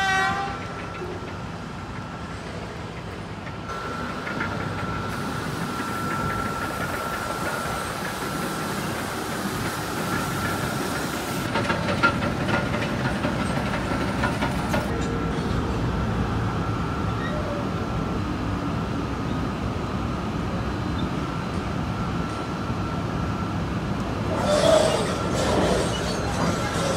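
Marion 8200 electric walking dragline excavator running: a steady heavy machinery din with a constant high whine from its electric drives and cable hoists. The tail of a horn toot cuts off at the very start. Near the end a louder rattling scrape comes as the drag bucket and its chains are hauled through rock.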